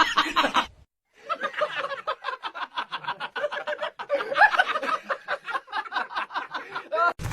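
A person laughing hard in a long run of quick, repeated pulses, starting about a second in after a short silent break.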